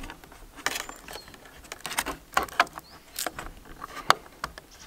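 Small irregular plastic clicks, taps and rustling as fingers handle wiring and plug connectors inside an open car door-mirror housing. One sharper click comes about four seconds in.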